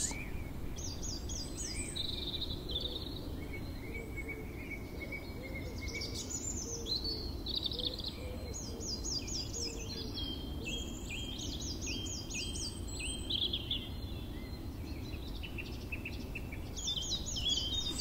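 Songbirds singing in spring woodland, with many short phrases of high, quick notes, some fast runs of repeated notes, over a steady low background noise.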